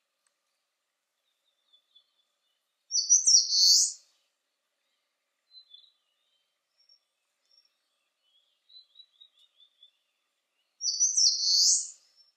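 Eastern crowned warbler singing its short high-pitched song twice, about eight seconds apart: each time a few quick notes run into a longer final note. Fainter short chirps come between the two songs.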